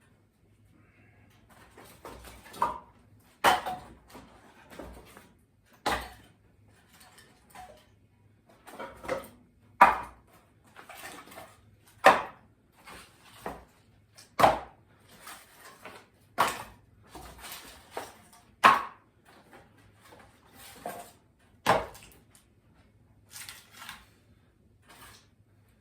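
A series of sharp knocks, roughly one every two seconds and uneven in strength, with quieter clatter between them.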